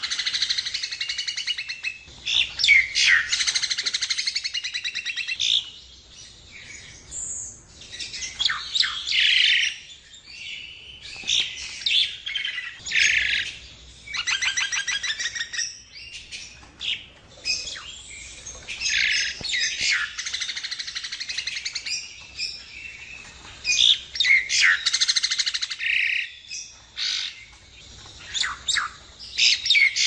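Javan myna singing: a varied run of harsh chattering and rapid rattling notes in phrases of one to three seconds, broken by short pauses.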